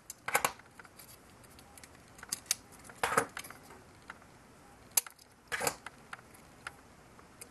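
Green plastic plug-in screw terminal blocks being pulled off a circuit board's pin headers and set down, with the board handled: a few scattered plastic clicks and short scrapes at irregular moments.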